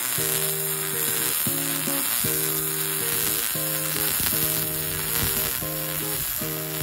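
MIG welding arc from an HZXVOGEN HVM270 multi-process welder, crackling and sizzling steadily as a bead is run on steel.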